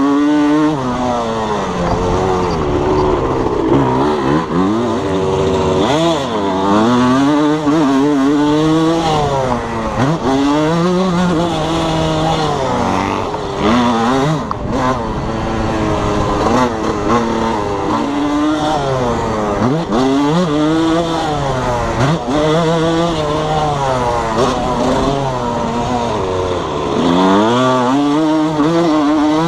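1987 Suzuki RM125's single-cylinder two-stroke engine revving up and down again and again as the motocross bike is ridden hard around the track. The owner says the engine is still running a little rich.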